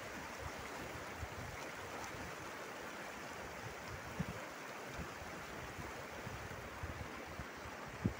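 Rushing mountain stream, a steady rush of water, with a few short low thumps; the loudest thumps come about four seconds in and just before the end.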